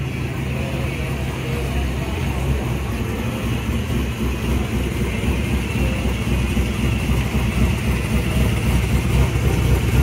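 Hot rod engines running at low revs as the cars roll slowly past, growing louder toward the end, with crowd chatter underneath.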